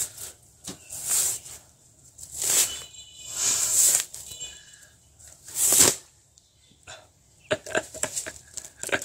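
Pineapple's rough skin rubbed and scraped against stretched nylon pantyhose: a series of rasping swishes about a second apart, then a run of quicker crackles near the end as the nylon strains.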